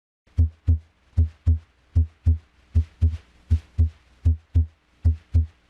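Normal heart sounds heard through a stethoscope: a steady lub-dub of first (S1) and second (S2) heart sounds, about 75 beats a minute. Each low thump pair has a short gap inside it and a longer pause after it.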